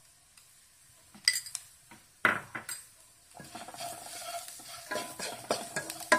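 A wooden spatula knocks against a kadai a couple of times, then stirs and scrapes sliced onions frying in coconut oil, with a sizzle that comes up about three and a half seconds in.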